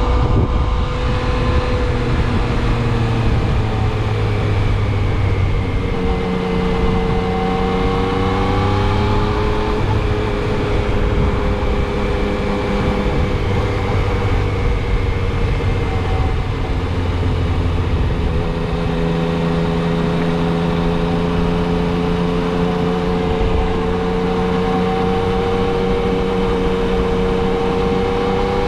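Motorcycle engine running at cruising speed under a steady rush of wind, its pitch dipping and rising a little with the throttle.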